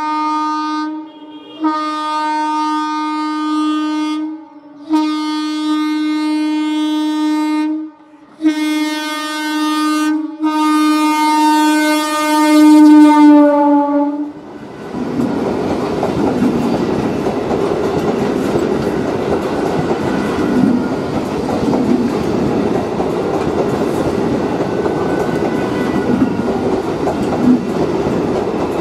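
ICF Medha EMU electric train sounding its horn in five long blasts of one steady tone, the last and loudest ending about fourteen seconds in. The train then runs past close by with a steady rush and rattle of wheels and running gear.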